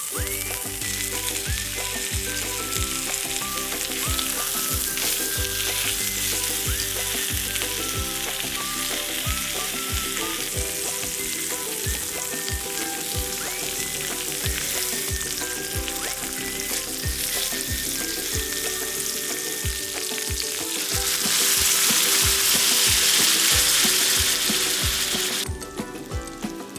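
Pork spare ribs sizzling and frying in a hot pan, with some stirring. The sizzle swells louder for a few seconds near the end, then cuts off suddenly. Light background music with a steady beat plays underneath.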